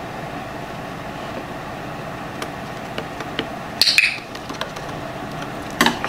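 A few faint light taps and clicks over steady background noise, with one sharper, brighter click-like sound about four seconds in.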